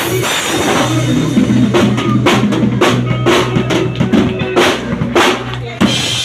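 Live rock band: the drum kit plays a run of loud cymbal crashes and snare and bass-drum hits over a held low bass-guitar note, as a song winds up.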